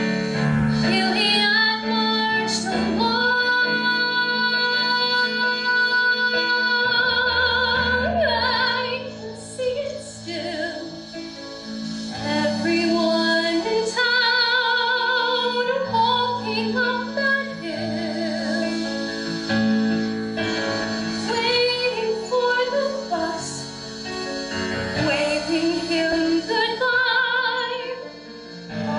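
A woman singing a musical-theatre ballad, holding long notes with vibrato, over instrumental accompaniment.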